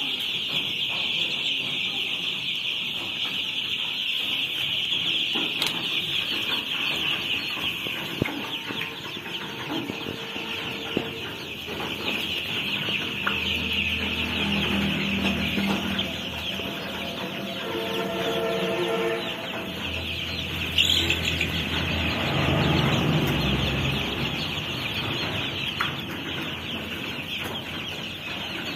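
A big flock of young chicks peeping continuously, many high-pitched chirps blending into one dense chorus.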